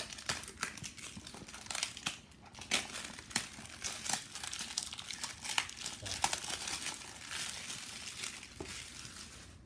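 Packaging crinkling and crackling with irregular clicks as a Funko Mystery Mini blind box and the plastic bag inside are handled and opened.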